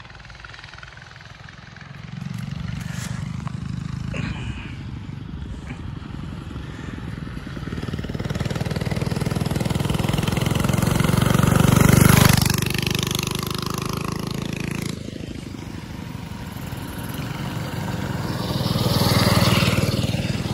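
Mini bike engine running at speed, swelling louder as it comes by, loudest about twelve seconds in, dropping off suddenly a few seconds later, then coming up loud again near the end.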